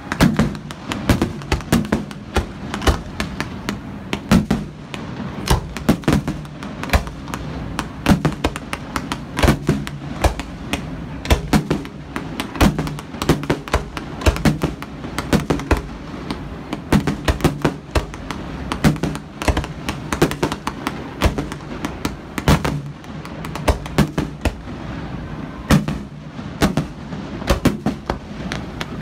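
Fireworks display: a dense, irregular barrage of bangs and crackles from launching comets and bursting aerial shells, several reports a second, with louder booms scattered through.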